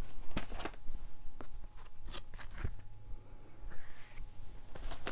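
Handling of a Blu-ray box set's packaging: scattered light clicks and taps of plastic and cardboard, with a brief rustle about four seconds in.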